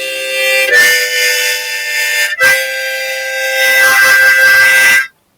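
Harmonica (mouth organ) playing three long held chords one after another, each changing cleanly to the next, then cutting off sharply about five seconds in.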